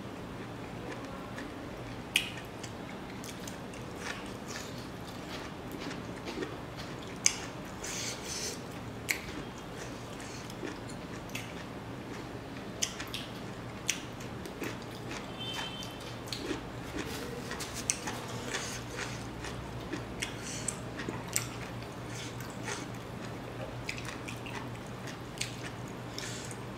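A person eating by hand: scattered crisp bites and chewing of raw green vegetables, with wet mouth and lip sounds, as short irregular clicks.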